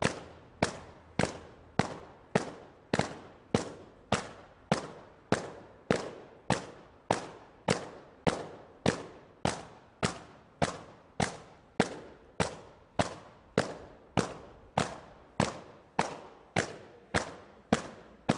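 A sharp knock repeating at an even pace, a little under two a second, each one dying away quickly.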